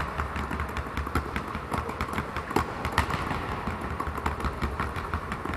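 Two basketballs dribbled at once on a gym floor: quick, uneven bounces, several a second.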